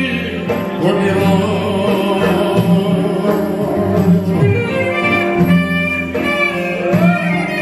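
Greek Epirote folk music played by a band, with a sustained, sliding lead melody over a steady accompaniment.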